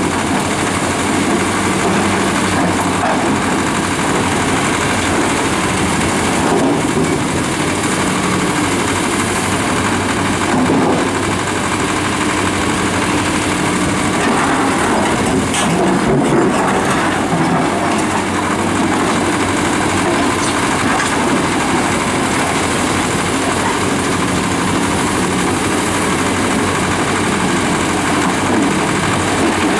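Two large Fiat-Kobelco hydraulic crawler excavators, an EX355 and an EX455, running steadily as they dig. Their diesel engines are working under load, mixed with the scrape and clatter of gravel and rock in the buckets.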